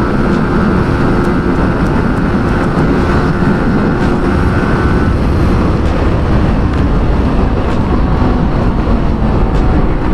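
Sport motorcycle engine running steadily at speed, with heavy wind rush over the microphone. A higher engine note fades out about five seconds in.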